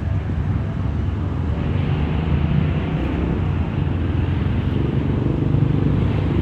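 Car engine rumble and road noise from street traffic, a vehicle running close by and growing slightly louder.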